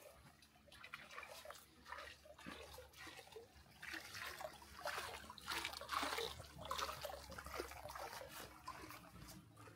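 Water trickling in a levada irrigation channel: a faint, irregular splashing.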